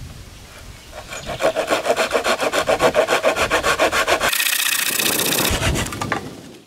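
A large knife scraping and stabbing into soil in rapid, rhythmic rasping strokes, about eight a second, starting about a second in. Past the middle it gives way to a short high hiss and a low thump.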